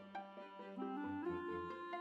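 Background instrumental music: a melody of held notes moving step by step over a low bass line.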